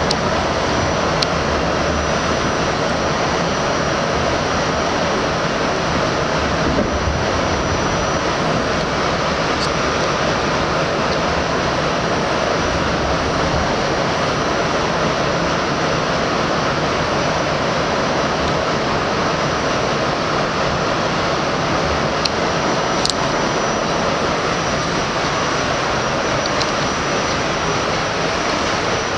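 Inside the cabin of an R68 subway car running along the track: steady running noise of the wheels and car, with a thin high steady whine. A few sharp clicks stand out, two of them close together near the end.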